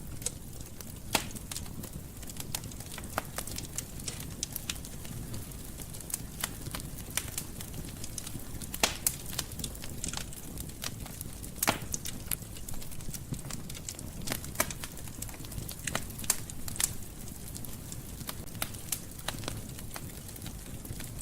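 Fire crackling in a fireplace: a steady low rumble of flames with irregular sharp pops and snaps, a few of them louder.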